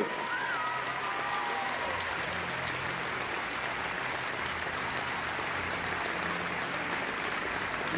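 Large arena audience applauding steadily, with some cheering.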